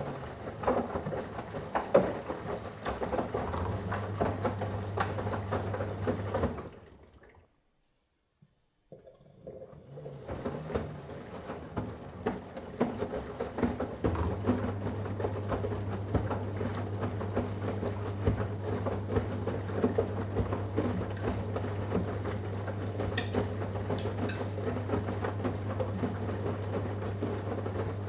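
Washing machine drum turning in the wash with water and laundry sloshing, over a steady low motor hum. It stops about seven seconds in for a pause of a couple of seconds, then starts turning again.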